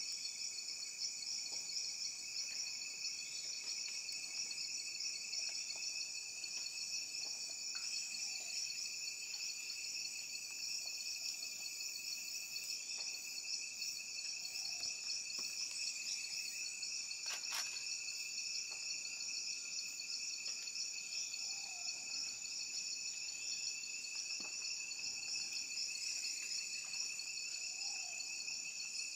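Steady chorus of tropical forest insects, a continuous high trilling in two pitch bands. A few faint short calls sound beneath it, and a single sharp click comes about two-thirds of the way through.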